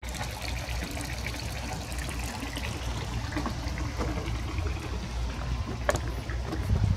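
Water lapping and trickling against a moored boat's hull and the dock pilings, over a steady low rumble, with a sharp click about six seconds in.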